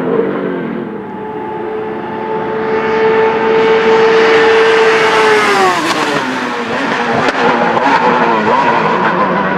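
Pescarolo 01 LMP1 prototype's Judd V8 running flat out at steady high revs as it approaches. About five and a half seconds in it passes, and the note drops sharply in pitch, then carries on lower and rougher as the car moves away.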